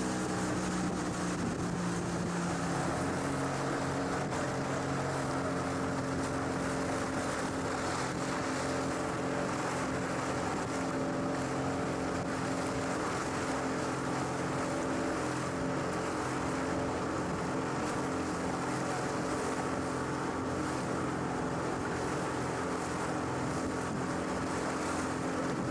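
Motorboat engine running at a steady speed as the boat moves over the sea, with a constant rush of water and wind.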